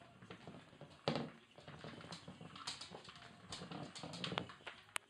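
A dog playing with a small ball on a tiled floor: a sharp knock about a second in, then scattered taps and scrabbling.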